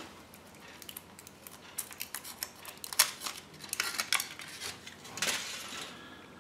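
Aluminium foil wrapper being peeled by hand off a Kinder Surprise chocolate egg: scattered light crinkles and clicks of the foil.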